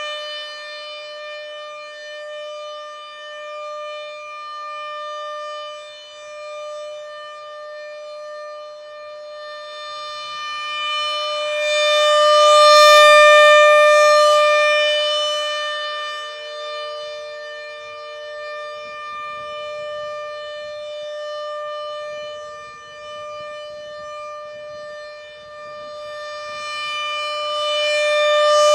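Rotating outdoor warning siren sounding a steady-pitched alert tone. Its horn sweeps around, so the sound swells loudest about halfway through and again near the end.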